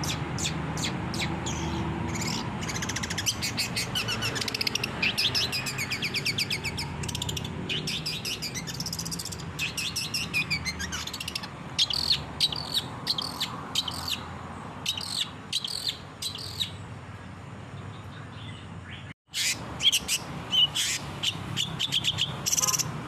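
Long-tailed shrike (cendet) singing a fast, varied chattering song of rapid high notes, broken by a sudden gap of a fraction of a second near the end.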